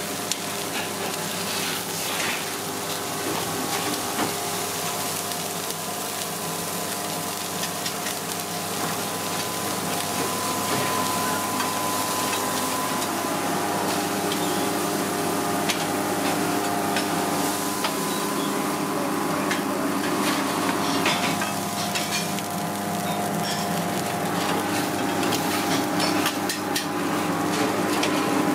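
Steaks sizzling on a hot griddle and char grill, with occasional clicks of metal tongs against the grate. A steady mechanical hum runs underneath.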